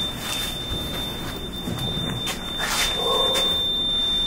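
Elevator door alarm sounding a steady high-pitched electronic tone, with a brief break about two and a half seconds in; the tone sounds while the doors are held open.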